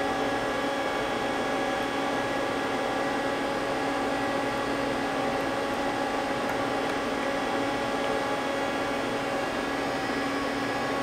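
Steady hum and fan-like whirr of a powered-up Mazak CNC lathe idling, not cutting, with a few constant tones over an even hiss.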